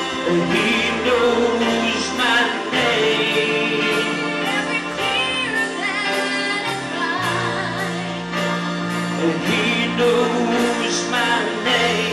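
Church worship team singing a gospel song over instrumental backing, with long held, wavering notes and a steady beat.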